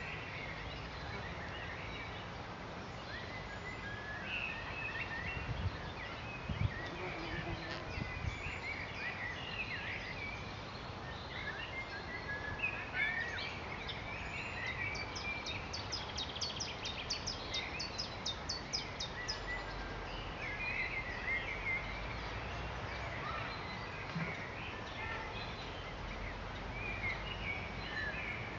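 Outdoor birdsong: several songbirds chirping and warbling throughout, one giving a rapid run of high notes, about four a second, for roughly four seconds midway. A low rumble of wind on the microphone, with a few soft low thumps early on.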